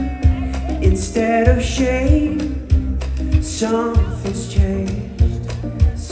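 Live pop band playing, with a woman singing the lead over bass, guitar and a steady kick-drum beat.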